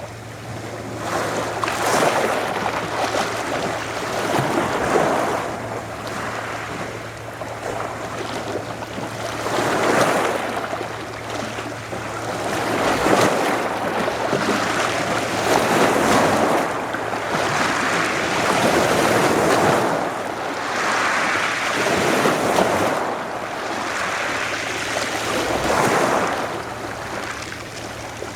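Adriatic Sea waves washing onto the shore, surging and falling back every two to three seconds, over a steady low hum.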